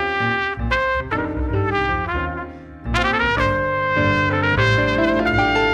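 Jazz trumpet playing a melodic solo line over plucked upright double bass. The trumpet breaks off briefly about halfway, then comes back in with a phrase whose first note slides up.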